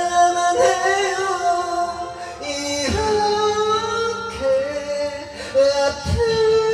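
A man singing into a karaoke microphone over the song's backing track, holding long notes that bend in pitch.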